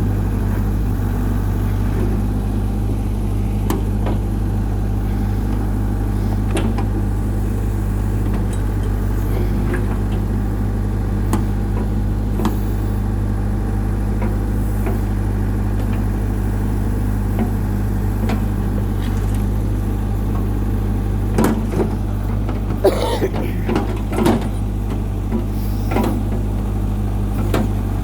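New Holland LB75 backhoe's diesel engine idling steadily, with a few sharp knocks or clanks in the last few seconds.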